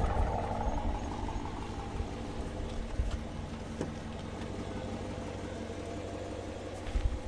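Dodge Challenger's engine idling with a steady low hum. There is a knock about three seconds in and a few more near the end.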